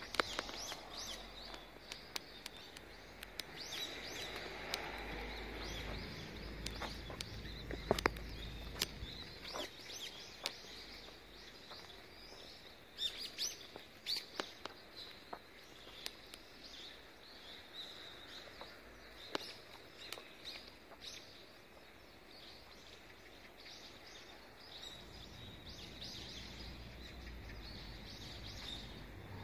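Small birds chirping over steady outdoor background noise, their short high calls scattered irregularly throughout, with a low rumble at the start and again near the end.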